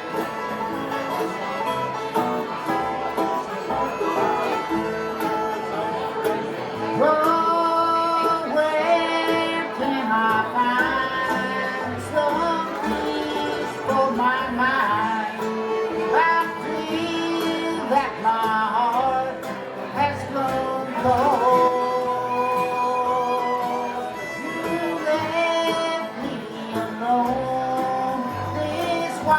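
Bluegrass band playing, with picked guitar and banjo under melody lines that slide in pitch.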